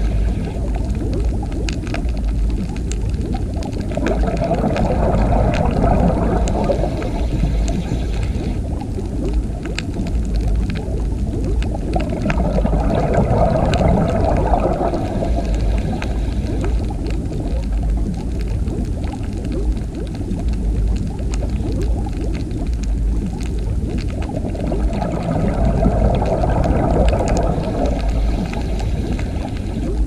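Underwater sound: a steady low rush of water with faint scattered clicks, swelling louder three times, about 4, 12 and 25 seconds in.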